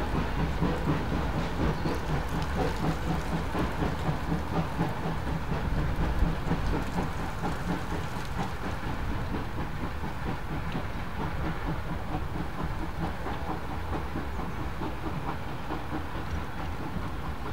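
A 1948 0-4-0 saddle-tank steam locomotive and its train running away along the line, the sound fading steadily as it draws off.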